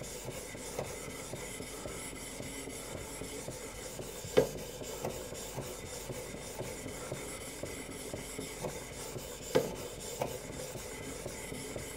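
Knife edge being stroked back and forth against an abrasive in a guided sharpening system, a steady quiet rasp while a micro-bevel of about 20 degrees is formed. Two light knocks sound about four and a half and nine and a half seconds in.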